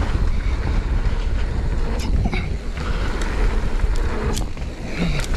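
Mountain bike rolling fast down a dirt trail, heard from a camera on the bike: a steady low rumble of wind and tyre noise, with a few sharp clatters from the bike, about two and four seconds in.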